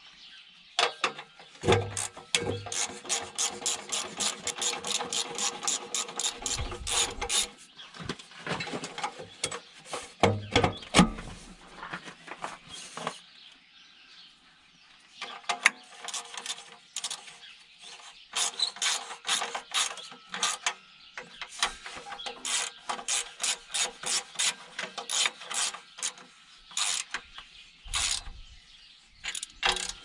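Ratchet wrench clicking in quick runs of about five clicks a second as the nuts on the clamp holding the exhaust pipe to the manifold are tightened. There is a pause in the middle and a few dull knocks in between.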